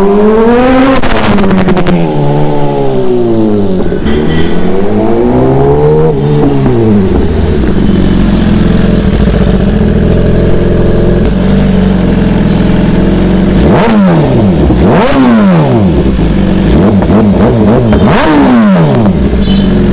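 BMW S1000RR's inline-four engine, with revs rising and falling repeatedly for the first several seconds, then idling steadily before three sharp throttle blips near the end.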